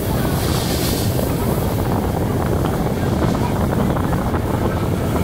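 Electric multiple unit of the Czech 'Pantograf'/'Žabotlam' type running along the track, heard from aboard as a steady loud rumble with faint clicks, and wind buffeting the microphone.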